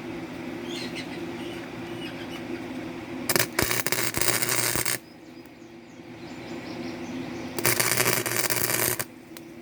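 Gasless flux-core wire welder striking two short welds, each a crackling arc of about a second and a half, about four seconds apart, over a steady low hum.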